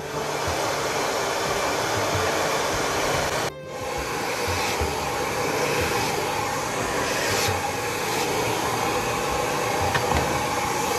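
Handheld hair dryer blowing on long hair, a loud steady rush of air that cuts out for a moment about three and a half seconds in and then runs on.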